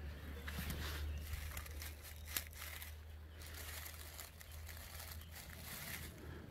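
Dry oak leaves and forest litter rustling and crinkling as a gloved hand digs a young mushroom out of the ground, with one sharp click about two and a half seconds in.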